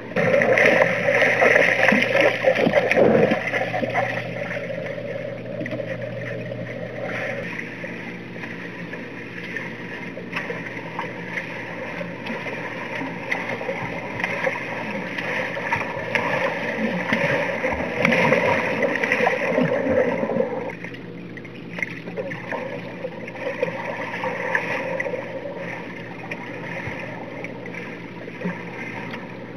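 Muffled underwater sound of a swimmer's strokes in a pool: splashing, churning water and bubbles, swelling as the swimmer passes, over a steady low hum.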